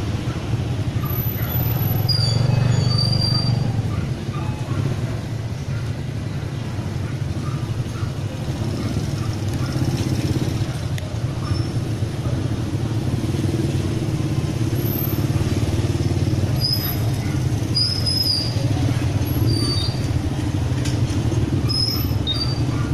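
Steady low rumble of outdoor street noise, with engine or traffic sound and no speech. A few short high chirps come through, mostly in the second half.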